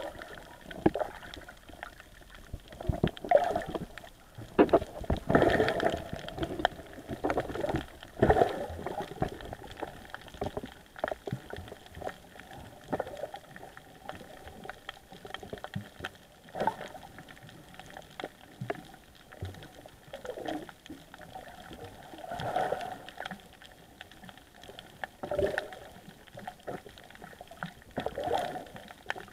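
Muffled underwater sound of a snorkeler moving through water: gurgling and bubbling water with irregular swells, knocks and clicks, busiest in the first several seconds.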